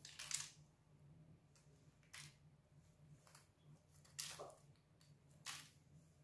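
Near silence: room tone with a faint steady low hum and about five brief, faint noises spread through it.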